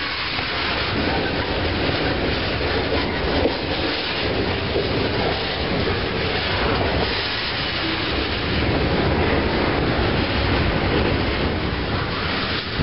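Freight train cars rolling past at close range: a steady, loud running noise of steel wheels on the rails.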